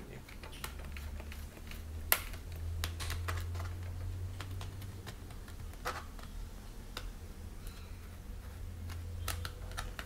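Light clicks and taps of a screwdriver and fingers on a laptop's plastic bottom case while its screws are being removed, with one sharper click about two seconds in. A steady low hum runs underneath.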